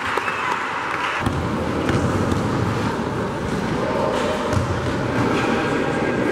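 Live sound of an indoor amateur basketball game: players' and spectators' voices over a steady background noise, with a basketball bouncing on the court.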